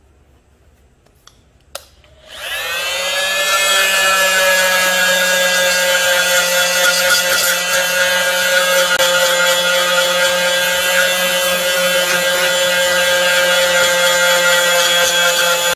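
A grinder clicks on about two seconds in, its motor rises in pitch to full speed within a couple of seconds and then runs steadily with a loud hiss. A 440C stainless steel knife blade is held against it and ground.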